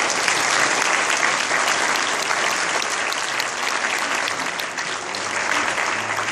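Audience applauding: steady clapping from many people. Near the end a few musical notes begin under it.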